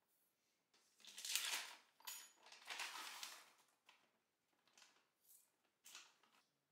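Clear plastic food bag crinkling as it is handled and tipped, the longest and loudest rustle about one to three and a half seconds in, then a few short crinkles.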